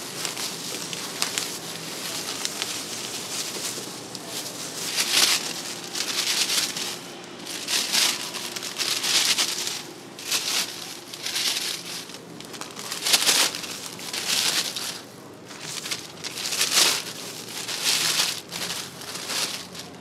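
Plastic crinkling and rustling from plastic food-service gloves and a plastic bag as spring rolls are rolled and bagged. It comes in a run of loud swells from about five seconds in.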